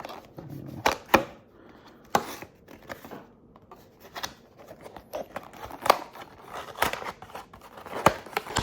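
A cardboard trading-card booster box and its wrapping being handled and opened by hand: a series of sharp, irregular taps, clicks and crinkles.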